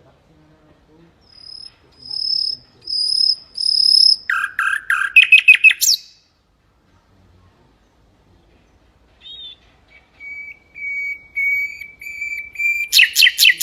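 Mangrove whistler singing: a phrase of repeated clear whistled notes that breaks into a quick run of lower notes and ends in a rising sweep. After a pause of a few seconds, a lower series of even whistled notes leads into a loud, rapid burst near the end.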